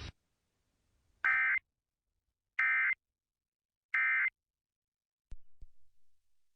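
Emergency Alert System end-of-message (EOM) SAME data bursts as broadcast on AM radio: three short, identical buzzing bursts of digital tones about 1.3 seconds apart, signalling the end of the alert. About a second after the last burst come two low clicks.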